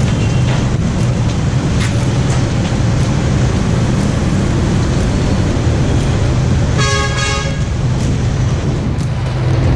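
Street traffic noise with engines running, and a vehicle horn honking once briefly about seven seconds in.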